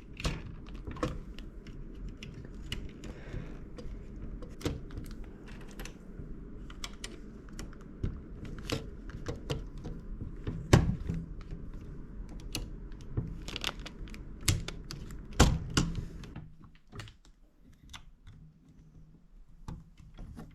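Plastic building bricks clicking and knocking as pieces are handled and pressed together by hand, in irregular sharp clicks with two louder knocks, one about eleven seconds in and one about fifteen seconds in. The clicking thins out over the last few seconds.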